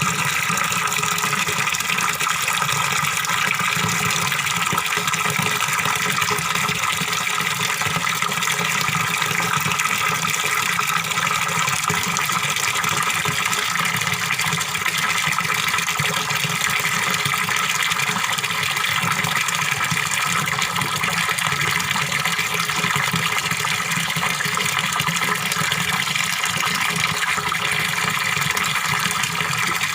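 Water from a small fish-pond waterfall splashing and gurgling steadily.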